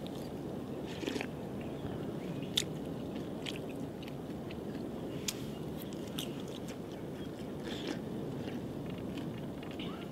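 A person eating pan-fried potstickers, with chewing and scattered short crunches and mouth clicks over a steady low background noise.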